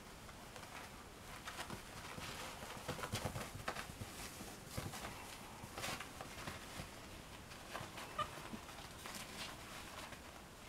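Chihuahua puppy's paws pattering and scrabbling on a puppy pad: irregular soft taps and rustles that come and go as the puppy moves about.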